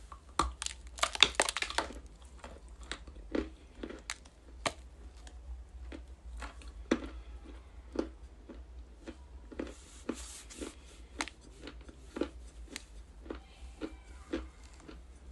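Ice being bitten and chewed in the mouth close to the microphone: a dense burst of crunching in the first two seconds and again about ten seconds in, with single crunchy chews about twice a second in between.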